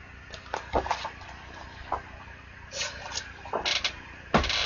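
Colouring books being handled: a few light taps and knocks, then quick rustles of paper and book covers sliding, the loudest near the end.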